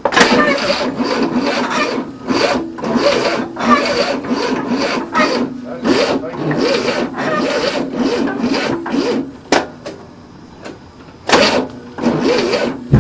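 1967 Cadillac's 429 V8 being cranked by its new starter motor, a rhythmic rasping churn of about two to three beats a second, without catching. It stops about nine and a half seconds in, then cranks again in two short bursts near the end. The engine is believed to be flooded, and the choke is held open.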